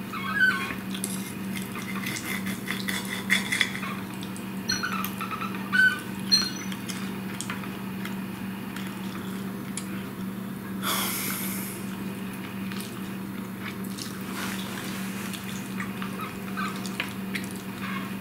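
Knife and fork clinking and scraping on a plate as food is cut, in scattered short clicks and scrapes, with a steady low hum underneath.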